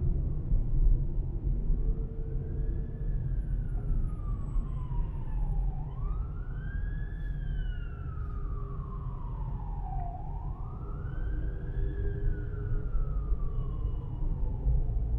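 An emergency vehicle's siren sounding a slow wail: three long sweeps, each rising quickly and then falling away over about four seconds. Steady low road rumble continues underneath.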